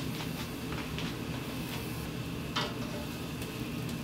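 A few light clicks and knocks of cookware at the stove, the loudest a sharper knock about two and a half seconds in, over a steady low hum.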